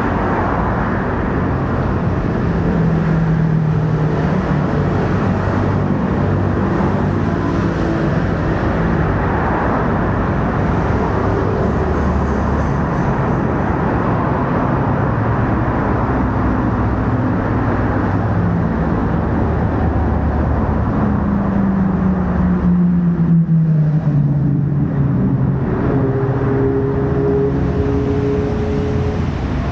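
Road traffic: cars passing with steady engine and tyre noise, and one vehicle's engine note falling in pitch as it goes by about two-thirds of the way through.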